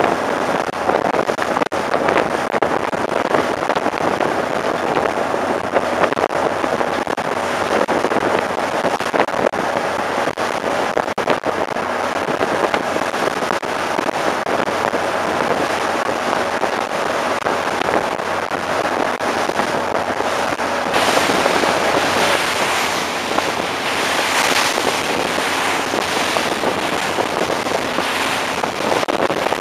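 Wind rushing and crackling over the microphone on the deck of a moving ship, with water noise beneath it. About 21 seconds in the sound turns brighter and hissier, in surges, as the bow wave rushing and splashing along the hull comes to the fore.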